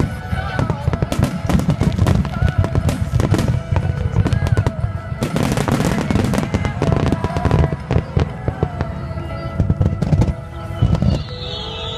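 Fireworks finale: a dense, continuous barrage of aerial shell bursts and crackling, bang after bang with a deep rumble beneath, with music playing underneath.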